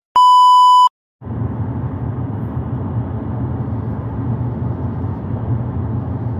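A single steady test-tone beep, under a second long, sounding with a colour-bars transition. Then, after a short gap, a steady low rumble of a car's interior noise begins.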